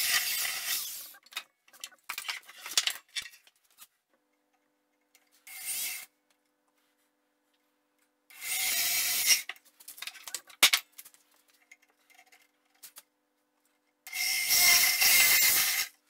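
A drill bit on a long extension boring into a wooden chair stretcher through a clamped guide block. It bores in four short bursts of a second or two each, with small knocks and clicks in between.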